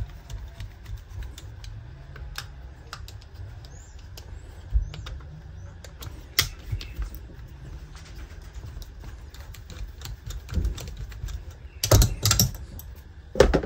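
Light, irregular metallic clicks and taps of a nut driver working on a chainsaw's carburetor mounting as the carburetor is taken off, with a cluster of louder knocks about twelve seconds in as the saw and parts are handled.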